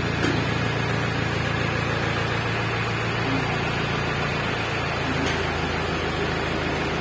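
A heavy vehicle's engine running steadily at idle, a low even hum, with a small knock just after the start.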